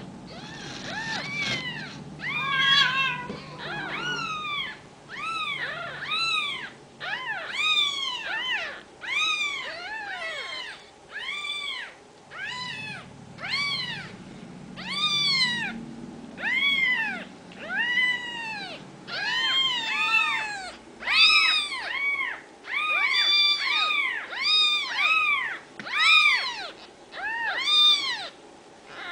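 Very young Ragdoll kittens mewing over and over: high-pitched cries that each rise and fall, about one or two a second, sometimes overlapping.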